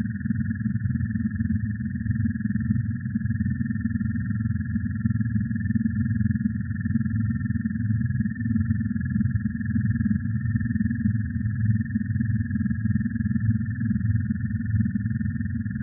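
Toad mating calls, electronically processed into a dense, steady texture: a thick low layer under a thin, higher buzzing band, unchanging throughout.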